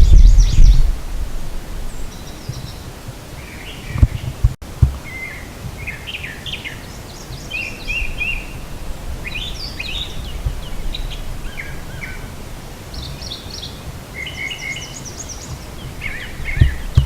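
Songbirds singing and calling, a mix of short chirps and rapid trilled phrases from several birds. Wind buffets the microphone at the start and briefly about four seconds in.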